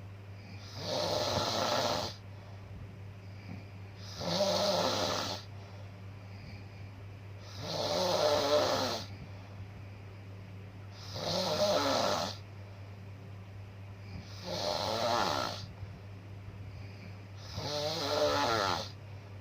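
Snoring in deep sleep: six long, rasping snore breaths, one about every three and a half seconds, each swelling and fading over about a second. A steady low hum runs underneath.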